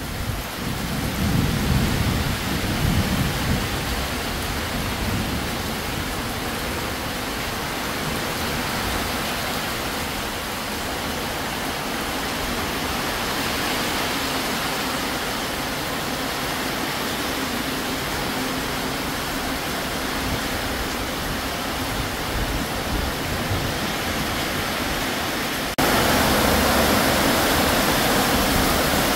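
Heavy tropical downpour with a steady rush of rain, and a low rumble of thunder in the first few seconds following a lightning flash. Near the end the rain abruptly becomes louder and harsher.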